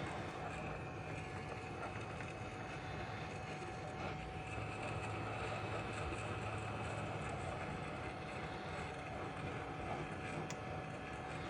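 Hot air rework station blowing steadily while reflowing a phone motherboard: an even hiss of air with a faint steady whine.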